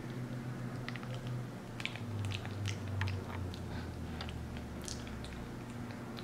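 Capuchin monkey biting and chewing a mushy, overripe banana close to the microphone: soft wet smacks and mouth clicks, busiest in the middle, over a steady low hum.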